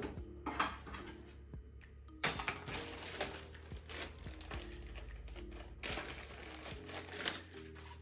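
Background music with scattered clicks and two longer stretches of rustling and clattering, like plastic parts being handled.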